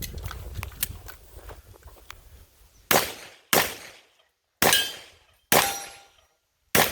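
Pistol shots during an action pistol stage: five single shots about three seconds in, unevenly spaced half a second to a second apart, each with a short echoing tail. Before them there is a low rumble and a few faint clicks.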